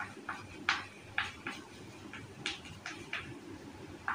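Chalk writing on a blackboard: about ten short, irregular scratches and taps of the chalk as a line of letters is written.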